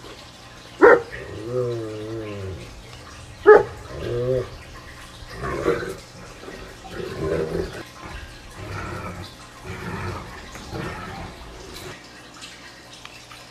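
Dog vocalizing: two sharp yelps, about a second and three and a half seconds in, each followed by a wavering, whining call. Softer whimpering sounds follow until it falls quiet near the end.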